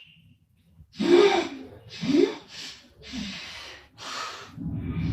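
A sleeping woman snorting and gasping: about five loud, noisy breaths in quick succession starting about a second in, the first the loudest. A steady low snore takes over near the end.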